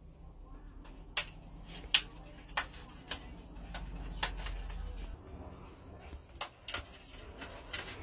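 Parrot's beak biting and tearing at a hanging toy of cardboard toilet-roll tubes: about ten irregular sharp clicks and cracks of cardboard, the loudest about two seconds in.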